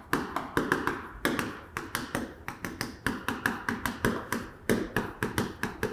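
Chalk tapping and scratching on a chalkboard as characters are written: a quick, uneven run of short taps, several a second.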